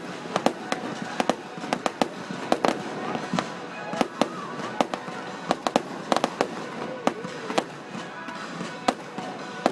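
Fireworks display: a quick, irregular run of sharp bangs and pops, several a second, with music playing underneath.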